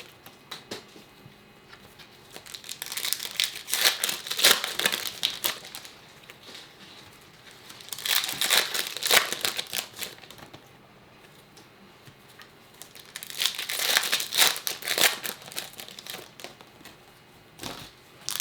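Plastic wrapping of trading card packs crinkling and being torn open by hand, in three bouts of dense crackling separated by quieter pauses.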